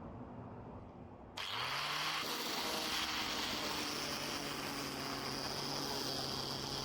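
An electric power tool switches on about a second and a half in, its motor quickly spinning up to speed and then running steadily with a loud hiss.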